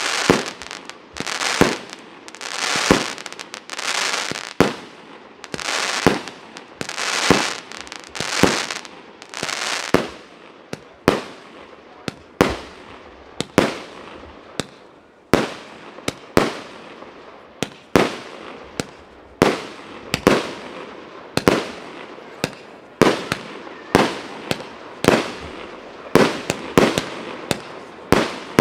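A firework battery firing a rapid sequence of shots. For the first ten seconds each shot is followed by a crackling, hissing burst, about one every second and a half. After that come sharper bangs about once a second, each shot launching a comet tail that bursts into stars.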